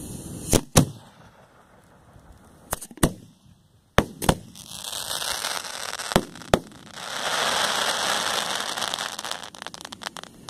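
Aerial fireworks shells going off: four pairs of sharp bangs, each pair a fraction of a second apart, then a long crackling hiss from about seven seconds in.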